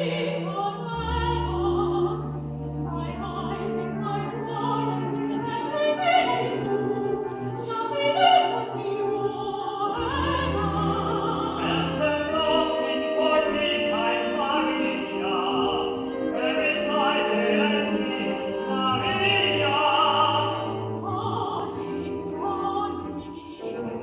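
An operatic voice singing a slow melody in long phrases, accompanied by a live symphony orchestra, with deep sustained bass notes coming in about a second in and again near the middle.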